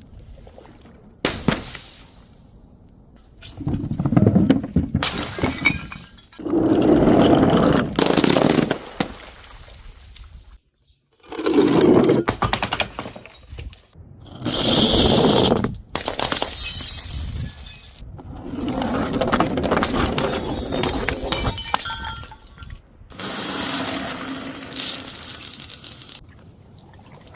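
Glass breaking and crunching in a string of separate bouts, each lasting one to three seconds and cutting off abruptly into the next.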